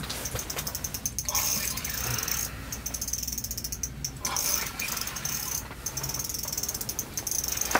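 Spinning reel cranked hard, its gears clicking in a fast run with a couple of brief pauses, as line is reeled in against the pull of a big lake trout on a bent ice rod.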